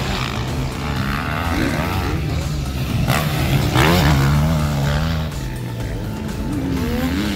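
Motocross dirt bike engines revving and falling back as riders go around the track, with a strong rev about four seconds in and another near the end.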